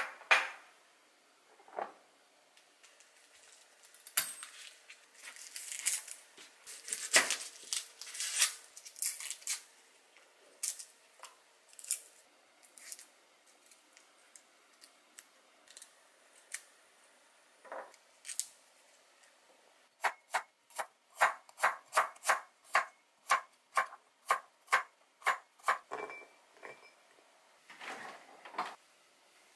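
Kitchen food-prep handling sounds: scattered crackly rustles and light knocks from hands working soaked garlic cloves and vegetables, then a run of about a dozen sharp, evenly spaced clicks, roughly two a second, and a last brief rustle near the end.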